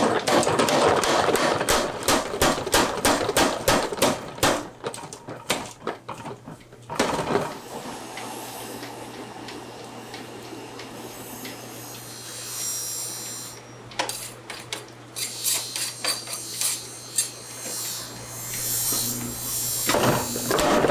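Mechanical power hammer pounding a red-hot steel knife blank in rapid, regular blows, which stop about seven seconds in. A coal forge fire then burns with a steady low hum and a few scattered clicks. The hammer starts up again just before the end.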